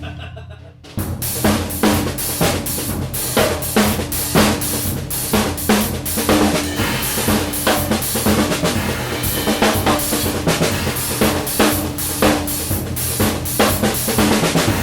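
Drum kit played in a busy groove: kick drum, snare drums and a pair of 15-inch hi-hats. The playing breaks off for about the first second, then carries on without a pause.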